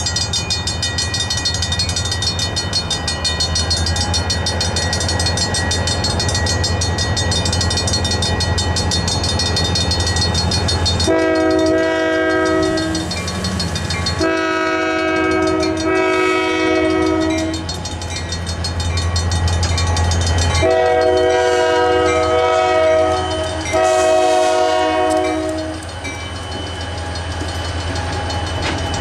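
Railroad crossing bell ringing rapidly over the low rumble of approaching Union Pacific diesel freight locomotives. About 11 seconds in, the lead locomotive's air horn sounds four long blasts, each a chord of several pitches, as the train reaches the crossing, and the locomotives roll over the crossing near the end.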